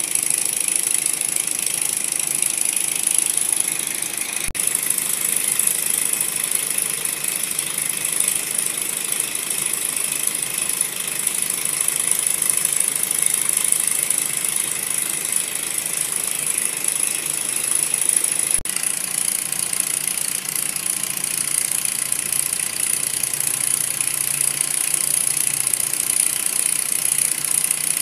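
Miniature model Stirling engine running steadily at speed: a continuous, high-pitched mechanical whirr from its spinning flywheel and reciprocating pistons.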